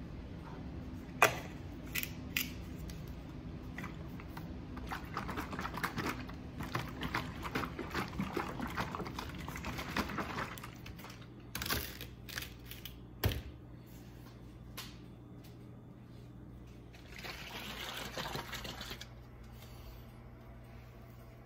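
Liquid sloshing in a plastic bottle as it is shaken, in quick bursts for several seconds, with sharp clicks and knocks of the bottle and its cap against a countertop. A short rushing noise comes near the end, with a steady low hum under it.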